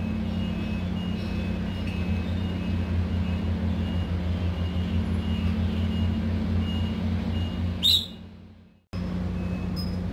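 A steady low mechanical hum with a faint pulsing in it. About eight seconds in comes one brief sharp sound, then the hum fades and cuts out for a moment before starting again.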